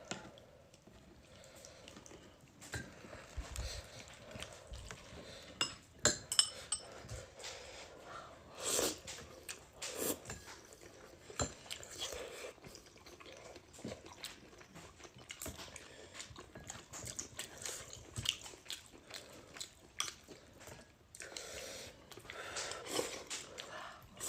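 A person chewing and biting hotpot food, with irregular clicks and knocks scattered through.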